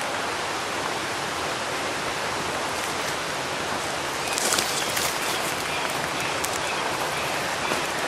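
Steady rushing of a waterfall, with a few faint crackles about halfway through.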